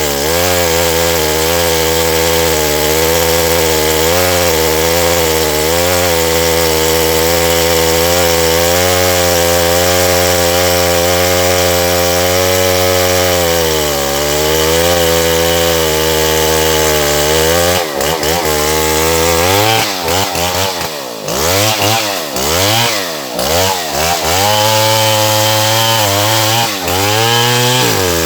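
Stihl MS070 two-stroke chainsaw sawing through wood at a steady high speed under load. For the last ten seconds or so the engine speed rises and falls over and over.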